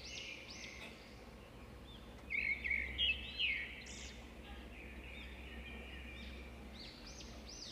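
Birds chirping in the background: many short, high, repeated chirps, busiest from about two to four seconds in, over a low steady hum.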